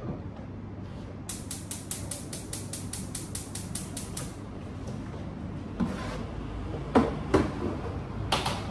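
Gas cooktop's spark igniter clicking rapidly, about five clicks a second for three seconds, starting about a second in. A few separate knocks of cookware follow near the end.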